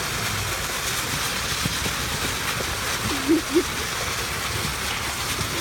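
Steady hiss of a lawn sprinkler spraying water up under a trampoline, with a short vocal grunt from one of the wrestling boys about three seconds in.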